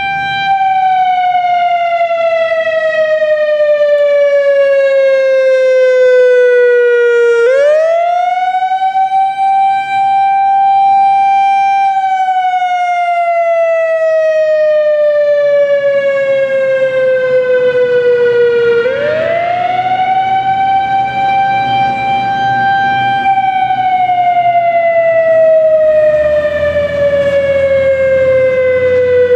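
Analog Whelen WS 3000 outdoor warning siren sounding a wail, the signal used for tornado warnings and tests. Its tone climbs back up within about a second, holds a few seconds, then slides slowly down over about seven seconds; this happens twice. The quick windup marks the unit as analog.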